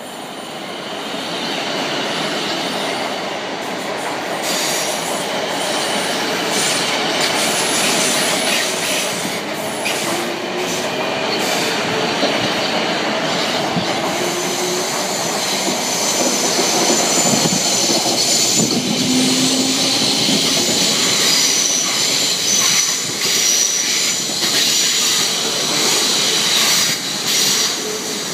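Class 450 Desiro electric multiple unit running along the platform close by, its carriages rumbling past. High-pitched wheel squeal builds in the second half, with wheel clicks over rail joints near the end.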